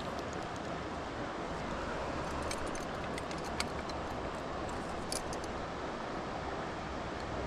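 Mountain stream water rushing steadily over rocks, with a couple of brief clicks about halfway through.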